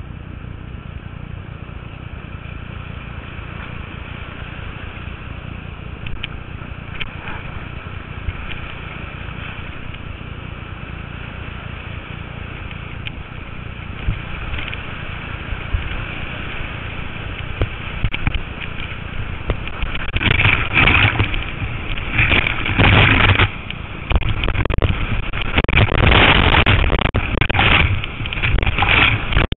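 Rushing whitewater heard from a camera riding at water level on a riverboard, a steady rushing noise at first. From about two-thirds of the way in it turns into loud, irregular surges of crashing and splashing water as the rider drops through the falls.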